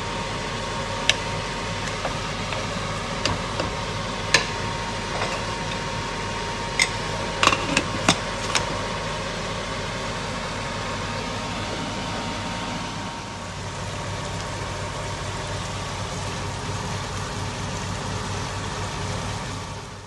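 Knocks and clanks of a wooden spoon against a pressure cooker, and of its lid going on, several single taps and then a quick cluster of clanks, over a steady whirring kitchen hum.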